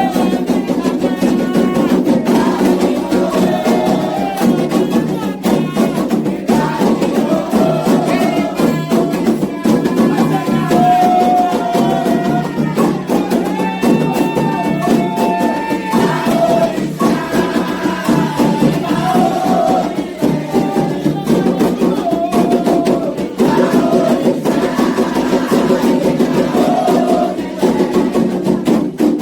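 Candomblé xiré music: voices singing a chant to the orixás over continuous, fast hand drumming and percussion.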